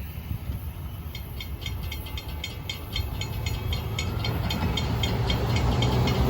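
Florida East Coast freight train rolling past: a steady low rumble of cars on the rails, with a run of quick high pings about four a second, and a low engine drone that grows louder toward the end.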